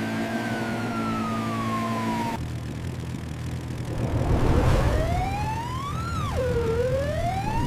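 Police siren wailing over a vehicle engine's steady hum: first one slow falling sweep, then after a cut a loud rushing swell and the siren rising and falling again in quicker sweeps.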